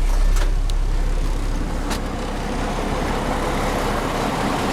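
Old Mack concrete mixer truck's diesel engine idling with a steady low rumble, very rattly and noisy, with a few sharp clicks in the first two seconds.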